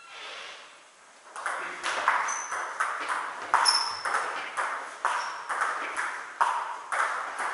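Table tennis rally: the celluloid ball clicking off the rubber paddles and bouncing on the table, a quick, fairly even run of sharp ticks, about two to three a second, starting about a second and a half in.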